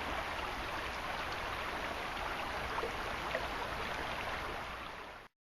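Rushing river water, a steady even rush that cuts off suddenly near the end.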